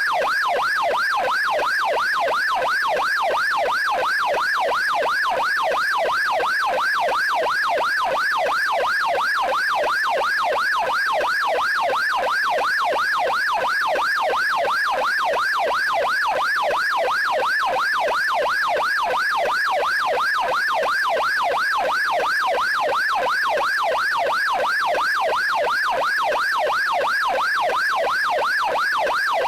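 Electronic police siren in yelp mode, sweeping rapidly up and down in pitch several times a second, without a break.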